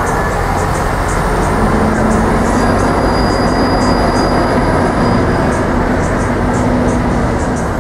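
Busy city street traffic at an intersection: cars and an articulated city bus pulling away in a steady dense rumble. A held mid-pitched hum comes in about two seconds in and fades near the end, with faint high ticking throughout.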